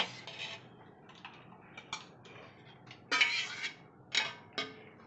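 Steel spoon scraping and clinking on a steel plate as roasted chillies, garlic and peanuts are scooped off it into a steel mixer-grinder jar. A few scattered clinks come first, then a longer scrape about three seconds in, then two sharp knocks near the end, the second one ringing.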